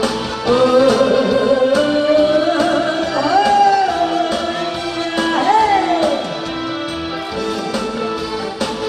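A woman singing a Korean trot song live into a handheld microphone over music with a steady beat. She sings long, sliding held notes, and her voice drops out about six seconds in while the music plays on.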